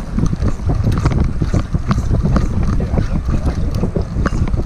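Wind buffeting the microphone as a low rumble, with close rustling and many irregular clicks as a sleeve and arm brush against it; the noise jumps up sharply at the start.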